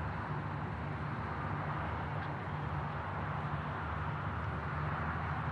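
Steady launch-pad ambience: a constant low mechanical hum under an even hiss.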